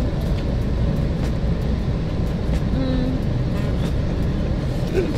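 Steady low rumble of a bus engine with road noise, and a few faint clicks over it.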